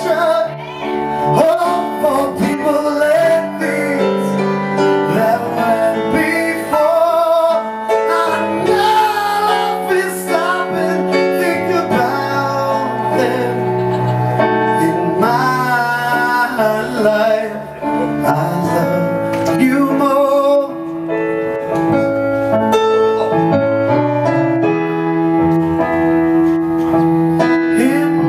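Live song: a man singing into a microphone over instrumental accompaniment with long held chords.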